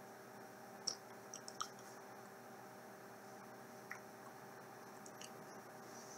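Quiet room tone: a steady low electrical hum with a few faint short clicks, a cluster about a second in and one near four seconds.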